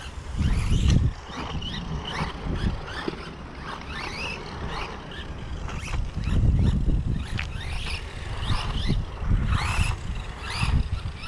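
ZD Racing Rocket DTK16 1/16 RC desert truck driving on asphalt. Its brushless motor gives short rising whines again and again as the throttle is blipped, over a gusty low rumble.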